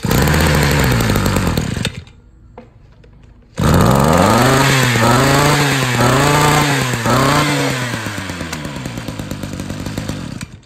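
Ruby 23cc two-stroke brush cutter engine running at high speed for about two seconds, then cutting off. It starts again a moment later and is revved up and down about five times, then settles to a lower, steadier speed.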